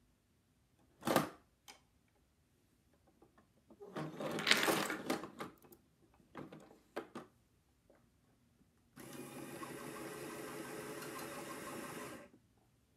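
Automatic bowling pinsetter running a cycle: a sharp bang about a second in, a loud clatter of pins being swept off the deck around four to five seconds, a few clicks, then a steady motor hum for about three seconds while the deck lowers a new rack of pins, stopping suddenly.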